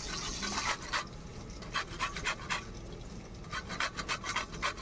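Peeled raw mango rubbed in quick strokes across a flat metal hand grater over a steel plate: a rasping scrape with each stroke, coming in runs of several strokes a second.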